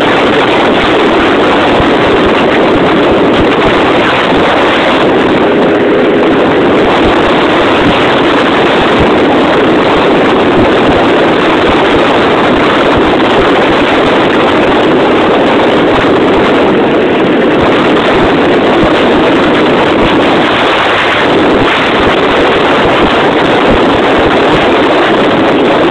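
Motorcycle engine running steadily on the move, heard from the riding bike under heavy wind noise on the microphone.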